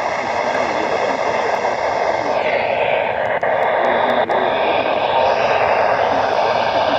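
Steady static hiss from a weather radio receiver on a weakly received NOAA Weather Radio broadcast, with a faint voice buried under the noise.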